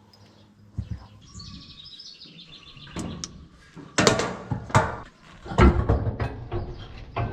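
A string of irregular knocks and clanks from hand work on a round baler, the loudest about four and five and a half seconds in. Small birds chirp in quick runs during the first couple of seconds.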